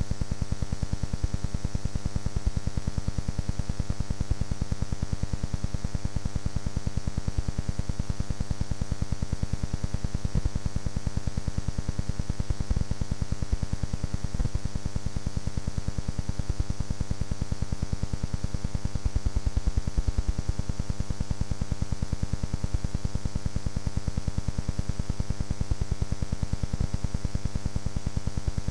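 Steady electrical buzz and hum that does not change, with a fast, even ticking running through it.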